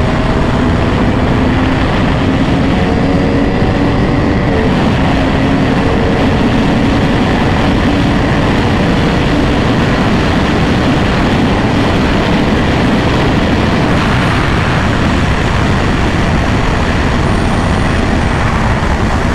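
Wind rushing over the microphone at riding speed, with a motorcycle engine running steadily underneath, most clearly in the first few seconds.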